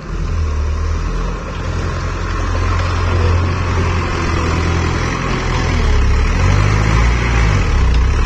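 Powertrac Euro 60 tractor's diesel engine working under load as the tractor pushes through deep mud and lifts its front loader bucket. The engine gets louder a couple of seconds in, and its note rises and falls near the end.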